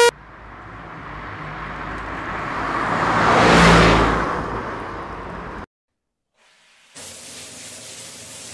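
A rushing pass-by sound effect with a low rumble, swelling to a peak about three and a half seconds in, then fading and cutting off suddenly. After a second of silence a faint hiss follows.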